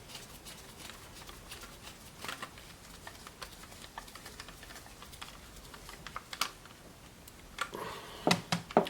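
Scattered light clicks and taps of hands working on a Tascam DP-008 recorder's plastic case and small parts during reassembly, with a few louder knocks near the end.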